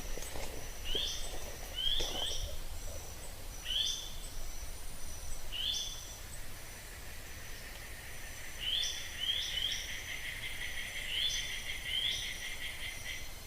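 Buff-vented bulbul (Iole crypta) calling: short, high notes that fall in pitch, given singly or in quick pairs every second or two. A rapid buzzy rattle runs beneath them through the second half.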